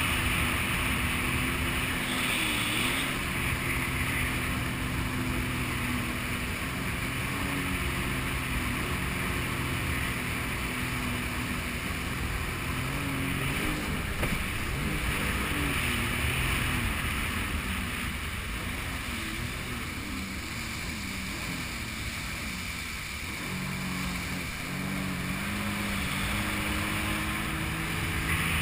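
Jet ski engine running under way across open water, its pitch rising and falling with the throttle, over the rush of water under the hull. It eases off for a few seconds in the second half, then picks up again near the end.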